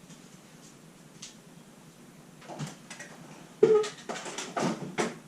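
Quiet room tone, then a short run of clicks and knocks from objects being handled. The loudest is a sharp knock a little after halfway with a brief ring, and several more knocks come near the end.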